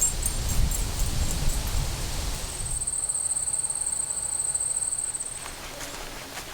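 An insect trilling: a steady, high-pitched buzz that starts about two and a half seconds in and stops about three seconds later, over low outdoor rumble in the first half.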